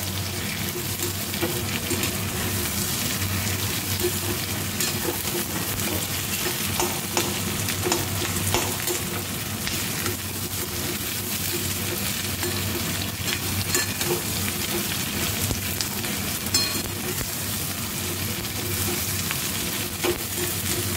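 Onion chunks and chopped garlic sizzling in hot oil in a steel kadai, a steady frying hiss. A perforated steel spatula stirs them, scraping and clicking against the pan now and then.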